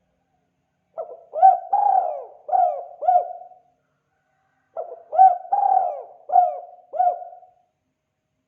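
Spotted dove (tekukur) cooing: two phrases of about five coos each, about a second apart, in the 'kuk 2' call style prized by Indonesian keepers as a lure call.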